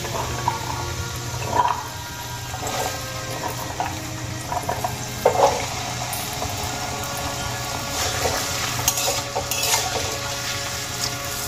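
Diced potatoes frying in hot oil in a kadai: a steady sizzle, with soft knocks in the first few seconds as more pieces drop in, and a spatula scraping and stirring them near the end.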